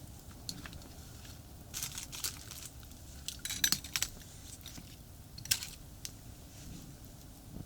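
Scattered sharp clicks and clinks in a few short clusters, over the steady low rumble of distant expressway traffic.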